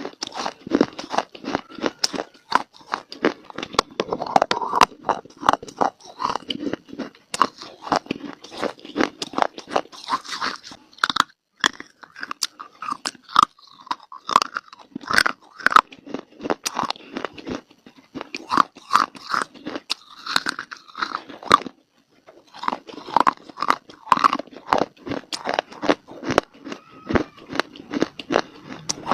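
Close-miked biting and chewing of dry clay (mitti): a dense run of sharp, irregular crunches, with a brief pause a little over two-thirds of the way through.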